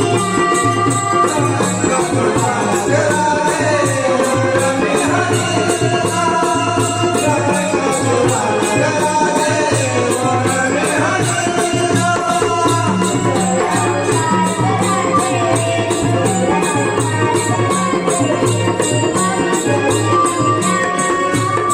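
Konkan Naman folk music: dholki drum and small hand cymbals (zanj) keep a steady, busy beat under a sung melody that glides up and down.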